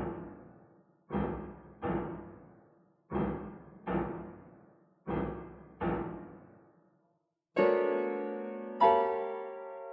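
Solo piano playing loud struck chords, mostly in pairs with a moment of silence between each pair, each chord dying away quickly. Near the end two fuller chords about a second apart are held and left ringing.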